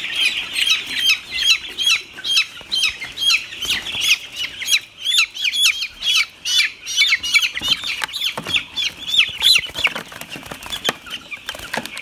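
A flock of 11-day-old broiler chicks peeping nonstop: many short, high, falling cheeps overlapping several times a second. A couple of knocks come near the end as the chicks are handled into the scale's basin.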